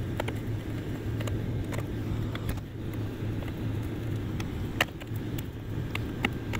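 Steady low hum of a Jeep Cherokee XJ idling with its heater on, heard from inside the cab. Over it, a screwdriver clicks against the metal screws of the centre console lid hinge as they are backed out: a few sharp clicks, the loudest a little under five seconds in and again near the end.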